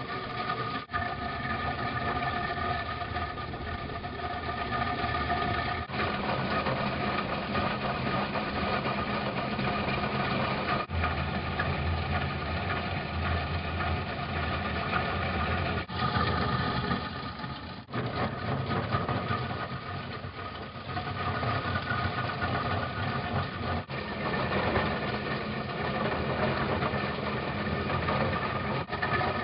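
Diesel engine of a Doosan DX 140 W wheeled excavator running steadily, with its Drumcutters EX 45 hydraulic drum cutter attachment milling asphalt. The sound changes abruptly every few seconds.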